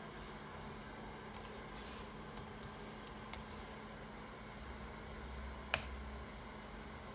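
Scattered keystrokes on a computer keyboard, a few quick presses with pauses between them, then one louder single key press about six seconds in.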